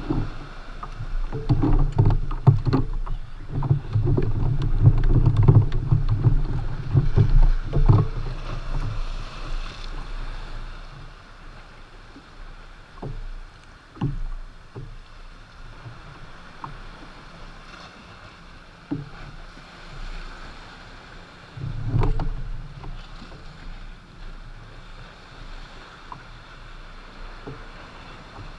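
Water moving and slapping against a plastic kayak's hull, loud and uneven for the first ten seconds or so, then quieter, with a few separate knocks.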